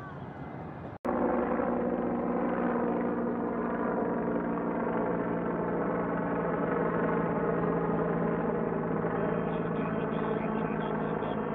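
Bell 412 twin-turbine helicopter flying low overhead: a loud, steady whine of its turbines and rotor that starts abruptly about a second in.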